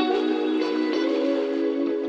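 Background music with sustained notes changing every half second or so.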